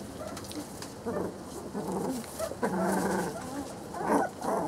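Three-week-old Brittany puppies vocalizing in a handful of short calls, the longest a little past halfway through.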